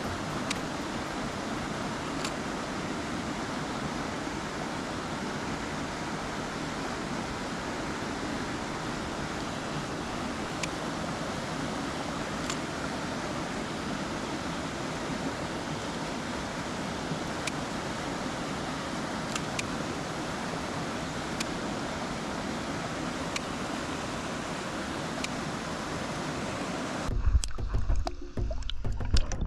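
Mountain stream water running steadily, an even rushing hiss with a few faint ticks. Near the end it gives way to background music with drums.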